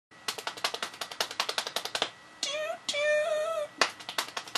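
A woman imitating a steam train with her voice: a fast run of 'ch-ch-ch' chuffs, about eight a second, then two sung 'toot' whistle calls, the second one longer, after which the chuffing starts again.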